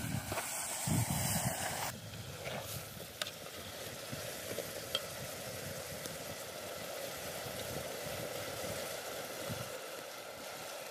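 Sliced zucchini sizzling steadily in a large pot over an open wood fire, from about two seconds in, with a few faint ticks.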